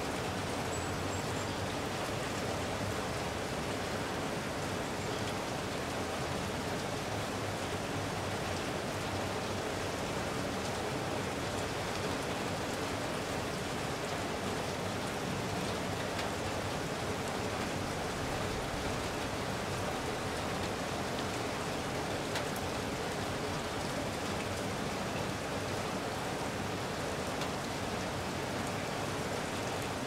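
Moderate rain falling steadily, an even, unbroken patter of drops.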